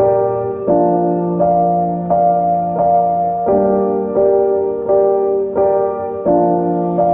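Background music: a soft keyboard piano playing a slow run of sustained chords, a new chord struck about every 0.7 seconds.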